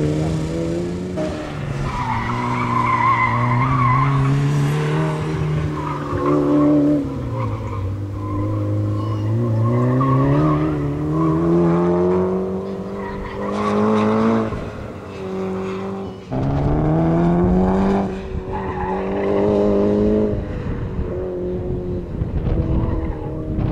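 Mitsubishi Lancer Evolution's turbocharged four-cylinder engine driven hard through an autocross course, its pitch rising in several long pulls and dropping back as the driver gets on and off the throttle. Tyres squeal through the turns, most clearly a couple of seconds in.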